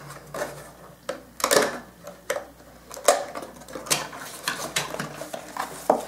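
A cardboard product box being opened by hand: irregular taps, clicks and scrapes as the flaps are pulled open and the box is handled, with light rustling between them.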